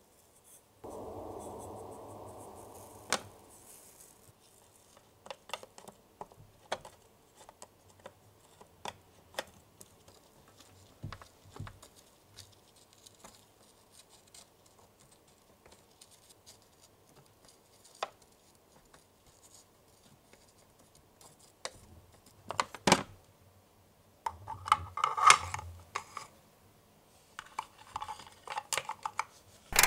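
Small-scale handling of toy cooking pieces: a brief soft hiss of sugar powder pouring from a plastic cup at the start, then scattered light clicks and taps of fingers and tiny plastic trays. Near the end comes a denser run of louder plastic clicks and clatter as trays are slid into a small plastic toy oven.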